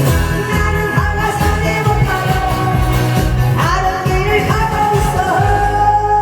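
Singing over loud music with a steady beat.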